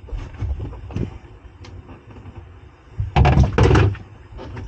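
Battery cables being pulled and pushed through the gap under a boat's side deck: rubbing, light knocks and a click about a second in, with a louder scraping clatter about three seconds in.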